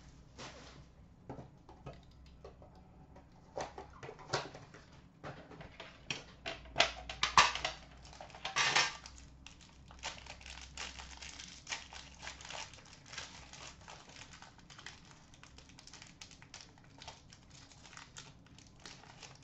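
Sharp clicks and taps of a metal Upper Deck Premier card tin being handled and opened, with plastic wrapping crinkling and tearing as the cards inside are unwrapped, most densely in the middle of the stretch.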